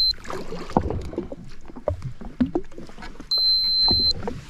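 A steady high-pitched electronic beep lasting nearly a second, about three seconds in, with a brief one at the very start, over small knocks and handling noise on a jet ski at sea.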